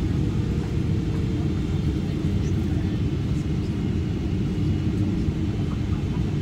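Cabin noise in a Boeing 777-300ER on final approach, heard from a window seat beside the wing: a steady low rumble of the GE90-115B engines and rushing airflow.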